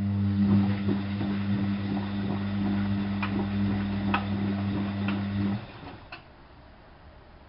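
Drain pump of an ALASKA WA8200 E washing machine running with a loud, steady hum and scattered ticks, then switching off suddenly about five and a half seconds in.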